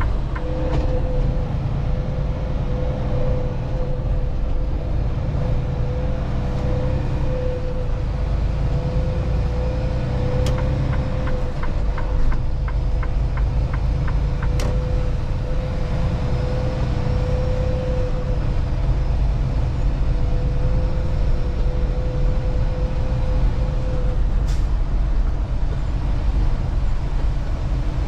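Semi truck heard from inside the cab while driving: a steady low engine and road rumble, with a steady hum over most of it and two short runs of fast, even ticking.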